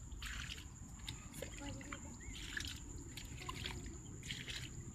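A hand scooping wet mud and water out of a shallow waterlogged hole, giving three or four short wet splashes and squelches.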